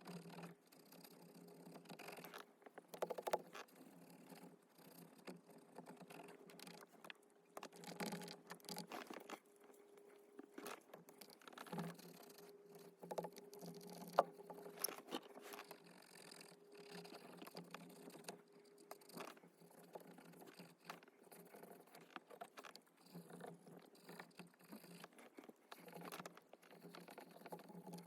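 Faint scratching and rubbing of a cotton swab scrubbing sticky soft-touch coating off plastic steering-wheel buttons, with scattered small clicks.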